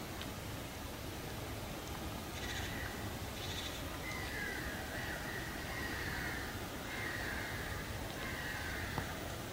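An animal calling several times from about two and a half seconds in: two short harsh calls, then a few drawn-out, wavering calls, over a steady hiss.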